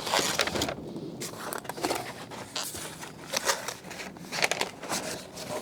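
Irregular rustling, scraping and small clicks of packaging and parts being handled and taken out of a box.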